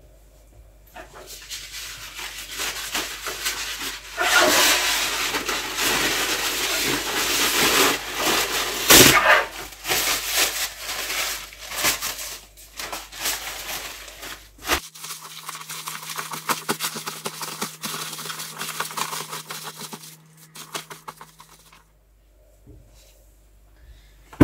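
Rustling and crinkling as a towel and its wrapping are handled and shaken out. About fifteen seconds in, a steady low hum starts abruptly and runs for several seconds while the rustling goes on more quietly.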